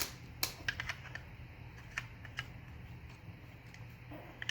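Light clicks and clacks of plastic toy dinosaur puzzle pieces being handled and fitted together, a handful in the first two and a half seconds, over a low steady hum.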